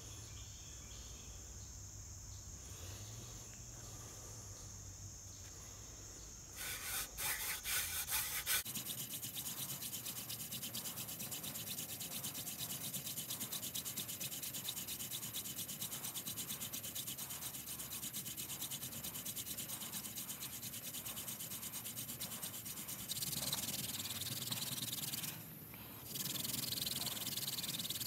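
Crickets chirping steadily, then a goldenrod hand-drill spindle twirled fast between the palms, its tip rubbing in the socket of a soft tulip poplar fireboard: a quick, even rubbing that goes on and on, louder near the end, with a brief pause just before the end.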